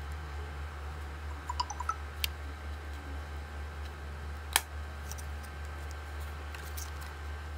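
Small plastic clicks and taps from handling Xiaomi wireless earbuds and their charging case, with one sharp click about halfway through. A steady low hum runs underneath.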